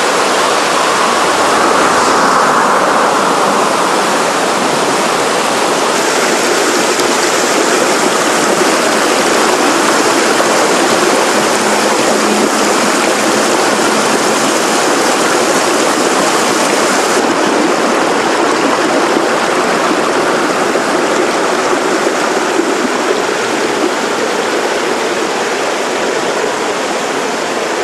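Steady rush of river water running over stones, its tone shifting abruptly a few times.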